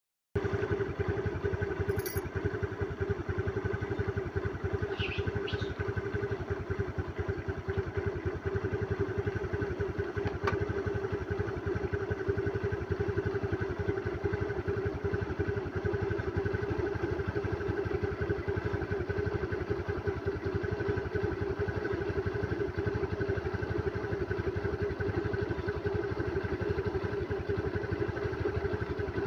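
An engine idling steadily close by, most like a motorcycle's, with an even pulsing that never changes. A couple of brief high squeaks come about five seconds in.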